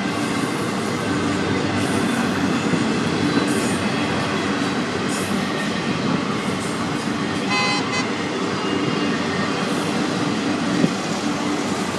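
Florida East Coast Railway intermodal freight train rolling past close by: a steady rumble and clatter of steel wheels on rail under spine cars loaded with highway trailers. A short high squeal comes about seven and a half seconds in, and a single sharp knock near the end.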